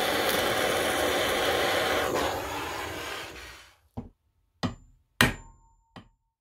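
Handheld blowtorch flame hissing steadily as it heats a small gear on the grinder's cast housing, dying away after about three and a half seconds. Then four sharp metallic taps of a hammer on a steel punch set on the gear's shaft, some with a short ring, to drive the shaft out.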